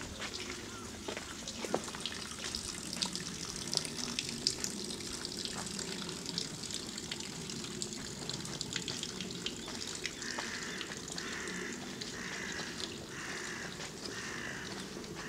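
Steady rush of running water, with footsteps in the first few seconds. From about ten seconds in, a short chirping call repeats roughly every two-thirds of a second.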